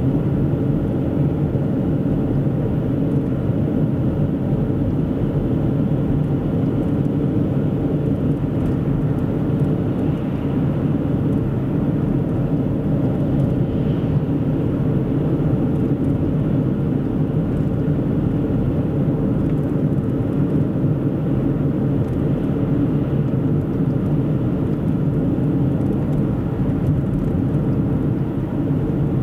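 Steady engine and tyre noise of a car driving at constant speed on a highway, an even low rumble.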